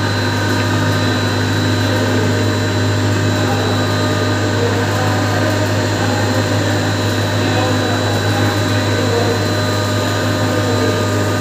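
Sugar pulverizer running steadily, grinding sugar into powder: a constant low machine hum with a faint high whine over it.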